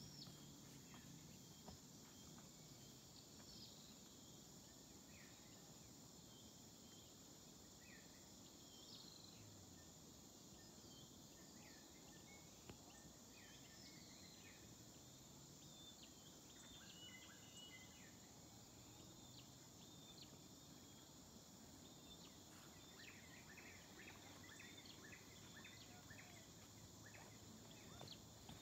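Faint tropical forest ambience: a steady high insect drone with scattered short bird chirps.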